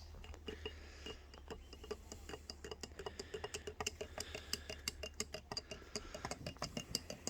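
A small spoon stirring powdered drink mix into a glass of water, clinking rapidly against the glass several times a second.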